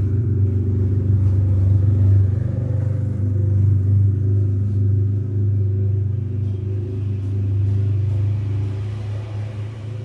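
Domestic cat purring close to the microphone: a steady, low, rapidly pulsing rumble that swells and eases slowly with its breathing.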